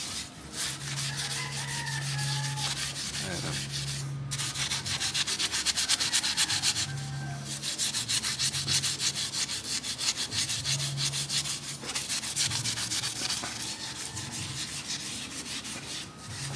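A scouring pad scrubbing a wet stainless-steel motorcycle exhaust elbow in rapid back-and-forth strokes, with a few brief pauses, to rub off heat discolouration with a cleaning paste.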